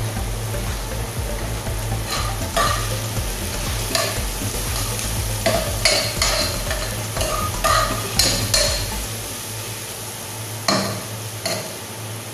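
Ginger and onion sizzling in oil in a ceramic-coated pot, stirred with a metal spoon that scrapes and clinks against the pan in irregular strokes over a steady frying hiss.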